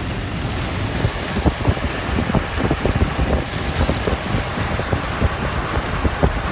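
Torrential rain hitting the car, heard from inside a moving car: a steady rush of rain and road noise with irregular sharp hits of heavy drops from about a second in.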